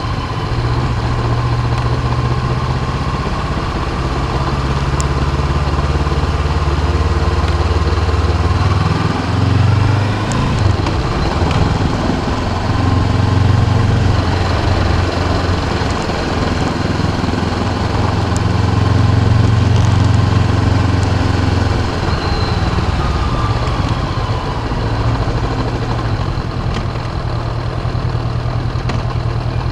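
Honda CB500X's parallel-twin engine running while the motorcycle is ridden, its note shifting several times as the throttle changes.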